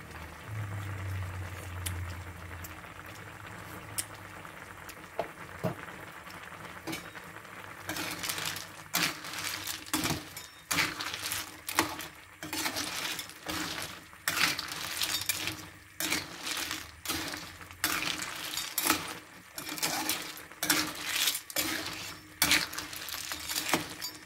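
Snails in a simmering yellow spice sauce bubbling in a metal wok, then, from about eight seconds in, a metal spoon stirring them: repeated scraping strokes against the pan with the shells clinking, about one or two a second.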